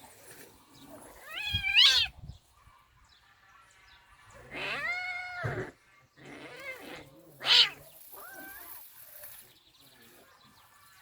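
A cat meowing and yowling four times in drawn-out, pitched calls, the second the longest and the first rising in pitch, as it plays roughly with a dog.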